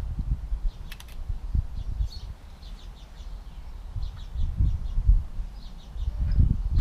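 Small garden birds chirping repeatedly, with irregular low knocks, taps and rumbles close to the microphone; a sharp click about a second in.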